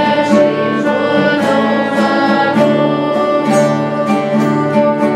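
Live acoustic guitars strumming chords, with a clarinet playing held notes over them.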